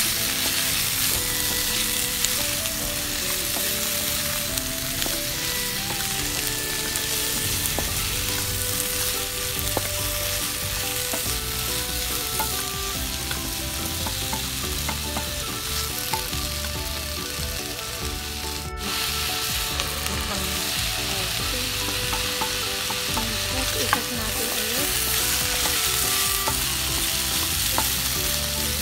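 Cubed squash, long beans and green chilies sizzling steadily in oil in a wok, stirred and turned with a wooden spatula.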